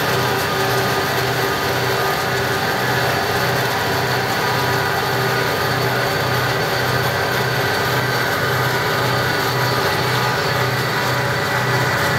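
Freight train's diesel locomotive running steadily, heard while being paced from a moving vehicle, so road and vehicle noise mix with it. The sound is a steady drone with a regular low pulsing beat.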